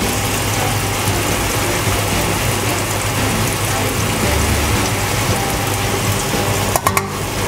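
Pork and eggplant stir-frying in a frying pan: a steady, dense sizzle and crackle of hot oil, with a few short clicks about seven seconds in.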